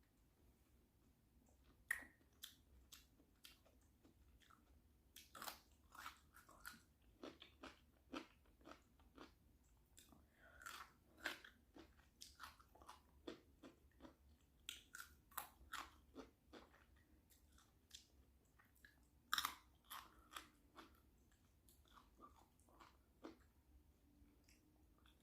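A person eating a shrimp boil close to the microphone: irregular wet chewing clicks, lip smacks and crunchy bites, with two louder bites about two seconds in and about three-quarters of the way through.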